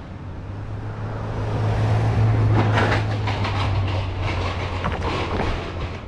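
Low, steady engine drone that swells to a peak about two seconds in and then fades, as of a motor vehicle passing, with a cluster of sharp clicks and knocks near the middle.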